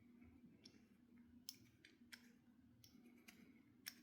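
A few faint, sharp metallic clicks as the firing pin assembly of a Vudoo Gen 1 rifle bolt is turned counterclockwise to unthread it from the bolt, over a low steady hum.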